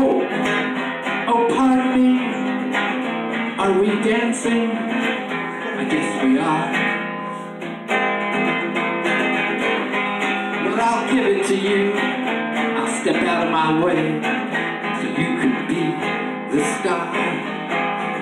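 Acoustic guitar played live and strummed, with a man singing over it at times.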